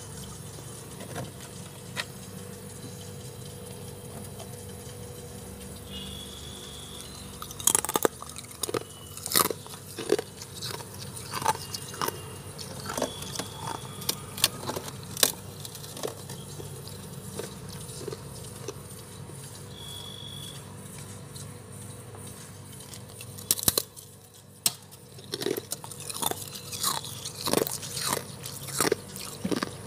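Crunchy bites and chewing of soft freezer frost: sharp crackling crunches come in a run from about a third of the way in, pause, and return near the end, over a steady low hum. A few short, high beep-like tones sound now and then.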